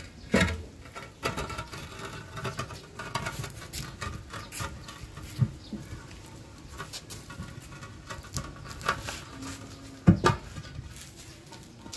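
Large concrete basin rolled on its rim over a concrete floor: gritty scraping with irregular knocks, and a heavy thump near the end as it is tipped upright.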